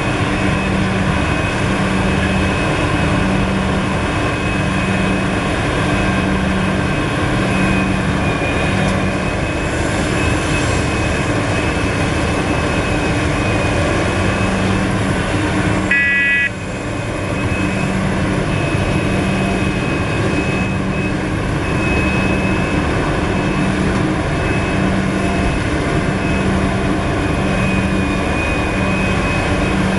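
Large Liebherr R974 crawler excavator's diesel engine and hydraulics working hard as it digs and loads a haul truck, with a low, regularly pulsing hum under a steady whine. The noise dips briefly about halfway through.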